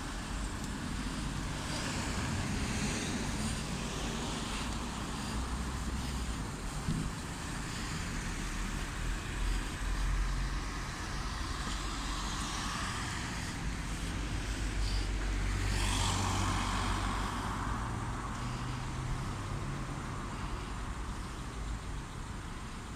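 Road traffic: cars driving along a town street, one passing loudest about sixteen seconds in.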